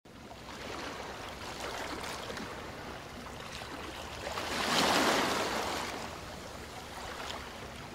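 Sea waves washing onto a sandy beach: a steady wash of surf that swells to its loudest about five seconds in and then falls back.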